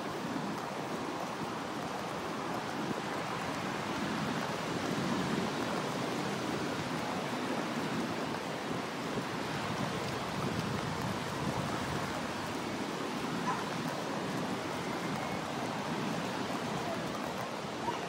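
Ocean surf washing onto a sandy beach: a steady rushing noise that swells a little a few seconds in.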